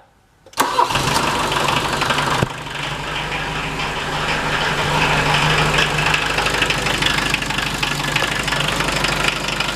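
1980 VW Rabbit's 1.5-litre naturally aspirated diesel engine starting about half a second in, running a little harder for the first couple of seconds, then settling into a steady idle.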